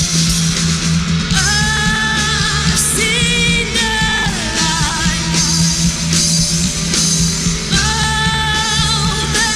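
Live rock band playing a song, with a singer holding long, wavering notes over guitar, bass and drums.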